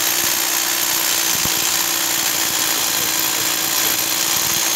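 Hand-held rotary hammer drill running steadily as it bores into the bridge's concrete deck, testing the repaired concrete's strength.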